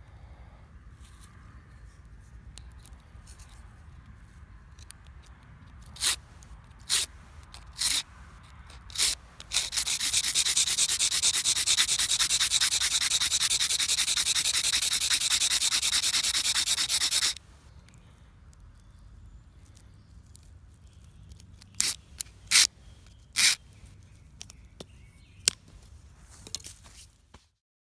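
A firesteel scraping along a pale wooden stick: a few short separate strokes, then about eight seconds of fast continuous scraping, then three more short strokes.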